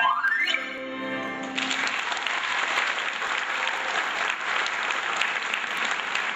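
A wind instrument solo ends with a quick upward slide in pitch, then a held final note over the ensemble. About a second and a half in, audience applause starts and carries on.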